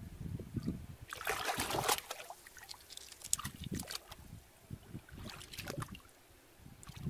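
Shallow water splashing and trickling in a few short bursts as hands scoop through it.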